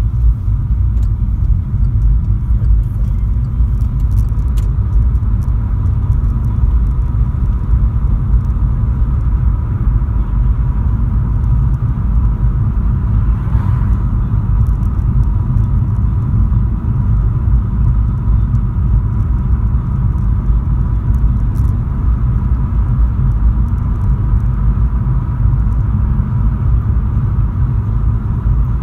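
Steady rumble of a Volkswagen Polo driving at road speed, heard inside the cabin: engine and tyre noise, with a faint steady high tone throughout.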